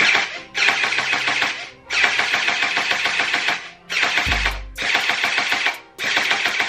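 A CaissaToy Glock gel blaster's electric motor and gearbox rattle in about six bursts of a second or two as the trigger is pulled, and no gels fire. The blaster has just come out of 24 hours in a freezer, and the owner thinks frozen gel beads are blocking it.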